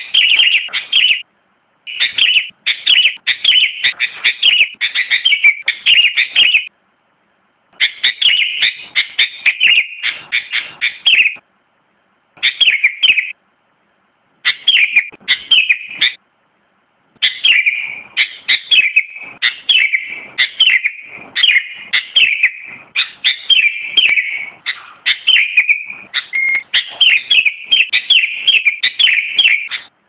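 Sooty-headed bulbul singing in phrases of quick, repeated chirping notes, with brief silent gaps between phrases and a long unbroken run through the second half.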